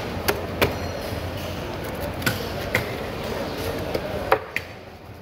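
Large knife knocking and chopping against a cutting board while cutting through a whole ruby fish's head and gills: about eight sharp knocks at uneven intervals, some with a short ring. Under them is a steady background hum that drops away near the end.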